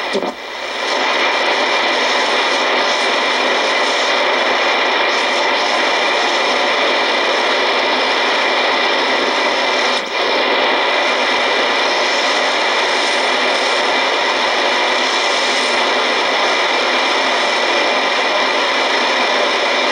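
Icom shortwave receiver in AM mode putting out a steady, loud buzzing noise signal, a "little buzzer", with a brief dropout about ten seconds in.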